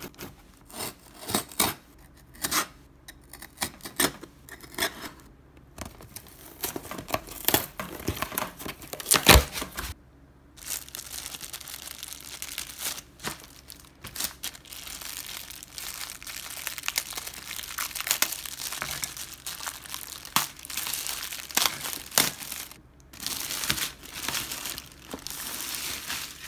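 A cardboard shipping box is cut and torn open by hand, with a run of sharp rips and cracks. From about ten seconds in, a clear plastic bag crinkles steadily as it is handled around a boxed microphone.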